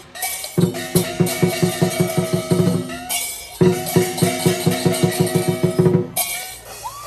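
Chinese lion dance percussion: a big drum beating fast and evenly, about six strokes a second, with ringing cymbals and gong. It plays in phrases with two brief breaks and stops about six seconds in.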